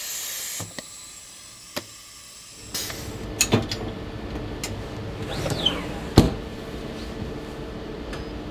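Steady hum of a water-bath PCR thermal cycler, with clicks and knocks as a metal rack of well plates is handled and loaded into it; the sharpest knock comes about six seconds in. A short hiss in the first half-second.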